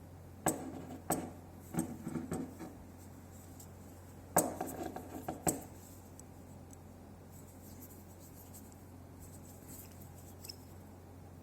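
Metal clinks and scrapes from a small steel part, a sandblasted steering universal joint, being handled and turned over. They come in two bursts: several clicks over the first couple of seconds, then a louder cluster about four and a half seconds in. A steady low hum runs underneath.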